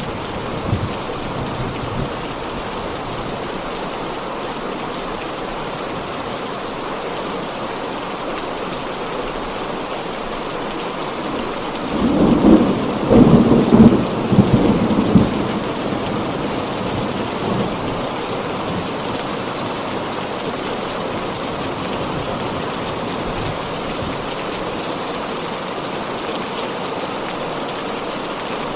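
Steady heavy rain, with a loud roll of thunder about twelve seconds in that lasts about three seconds and then gives way to the rain again.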